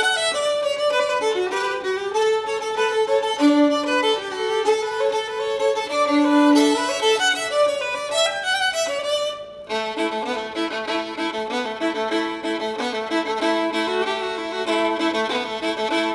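Solo violin music: a single melodic line, which changes about ten seconds in to a denser, rhythmic passage with several notes sounding at once.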